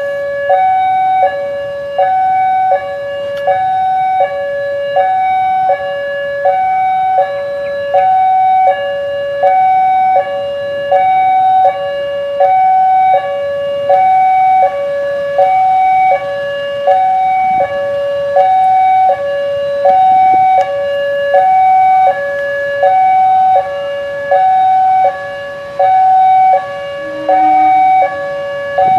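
Railway level-crossing warning alarm: an electronic signal alternating between a higher and a lower tone, about one high-low cycle every one and a half seconds, sounding without a break to warn that a train is passing.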